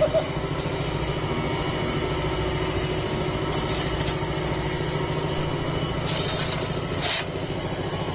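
Diesel engine of a concrete pan mixer running steadily, with a shovel scraping through a pile of soil and aggregate twice, about three and a half and six seconds in.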